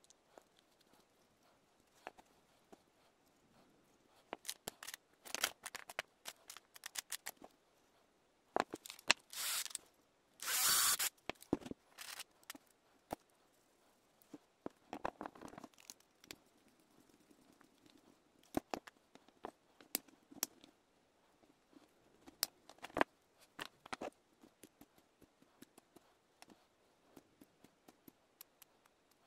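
Hands handling and fitting small plastic and wooden parts on a wooden tabletop: scattered clicks, taps and scrapes, with two longer bursts of noise about nine and eleven seconds in.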